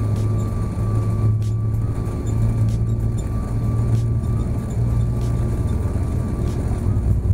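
Cabin noise inside an Airbus A340-600 taxiing on the ground: a steady low hum from its four Rolls-Royce Trent 500 engines, with a thin steady whine and faint knocks about every second.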